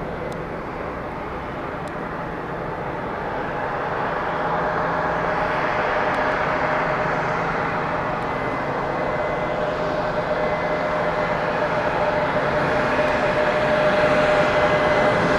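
Jet airliner engines: a steady roar with a thin whine in it, growing slowly louder as the aircraft comes closer.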